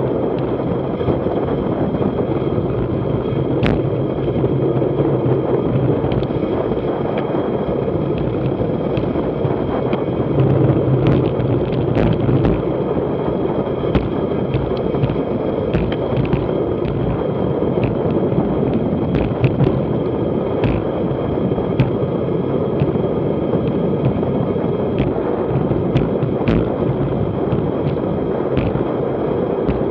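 Steady rush of wind over a bike-mounted camera's microphone, mixed with tyre roar, on a road-bike descent at close to 40 mph, with scattered sharp knocks throughout.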